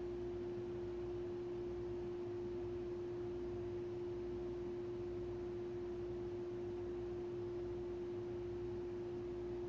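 A single steady pure tone, a little below 400 Hz, holding one pitch at an even level throughout, with no rise, fall or fading.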